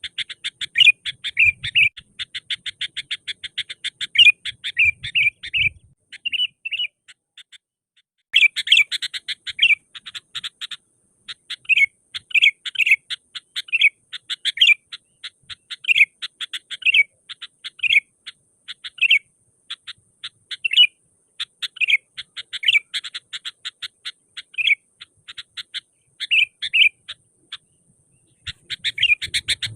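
Sooty-headed bulbul (kutilang) singing vigorously: fast runs of short, sharp chirps broken by louder phrases, with a pause of about two seconds some six seconds in before the chirping picks up again.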